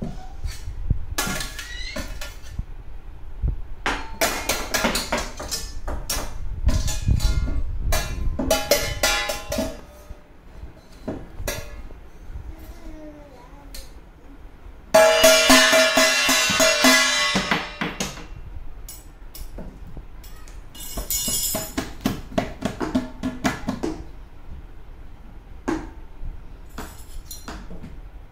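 Stainless steel plate struck and tapped with a metal spoon, irregular metallic clangs that each ring briefly, with a louder stretch of ringing about halfway through.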